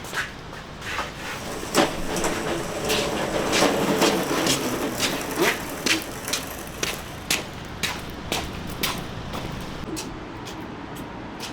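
Irregular sharp knocks and clanks, sometimes several a second, over a low steady rumble; they are busiest in the first half and thin out towards the end.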